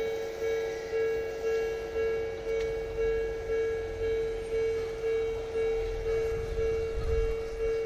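Japanese level-crossing warning bell ringing steadily, about two electronic dings a second. A low rumble swells through the second half.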